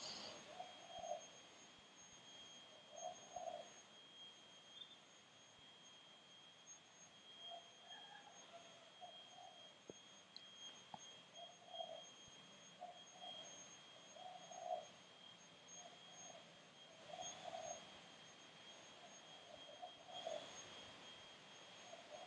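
Near silence: faint room tone with a steady high-pitched whine.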